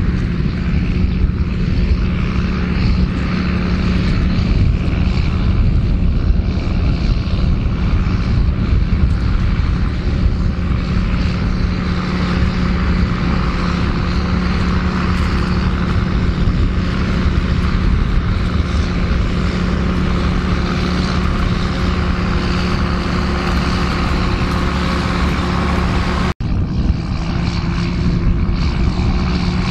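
John Deere 7810 tractor's six-cylinder diesel running steadily under load while pulling a 6 m spring-tine cultivator through the soil. The sound cuts out for an instant once near the end, then resumes.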